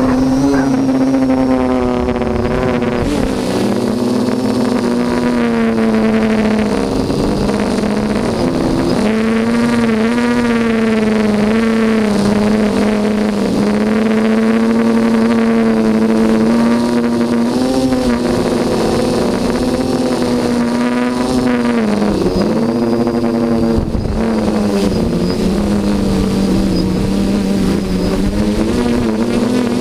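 Quadcopter's electric motors and propellers in flight, heard close up from the camera mounted on the craft: a steady buzzing whine whose pitch rises and dips briefly now and then as the throttle changes.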